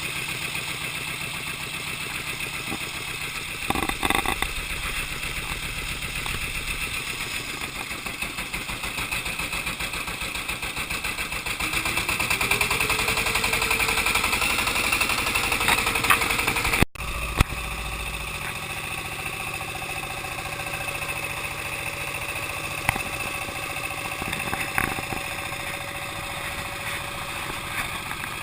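Boat engine running with a steady drone, rising in pitch about halfway through as it speeds up, then dropping out abruptly for a moment and carrying on at a steadier pace.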